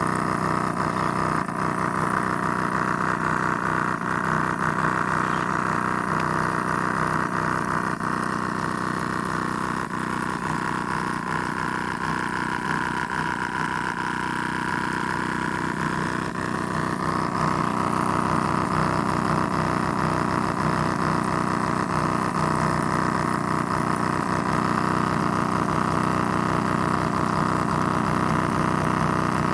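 Motor of a mini borewell drilling machine running steadily, with a high whine; about halfway through the pitch sinks for a few seconds, as under load, then rises back.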